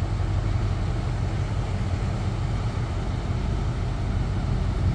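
Steady low hum of an Alsthom diesel-electric locomotive's engine as it moves slowly along the track, with road traffic beneath it.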